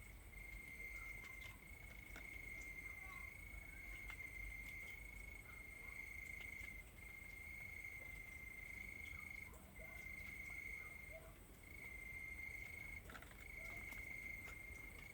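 Crickets singing in a continuous high trill, broken by short pauses every second or two, with fainter insect tones higher up.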